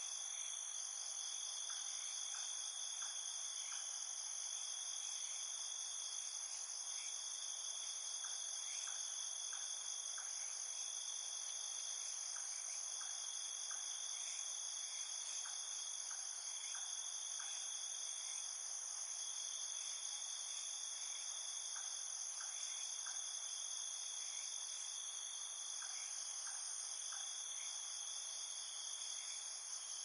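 Night chorus of crickets: several high-pitched trills running steadily and layered together, with short lower chirps in groups of three or four every few seconds.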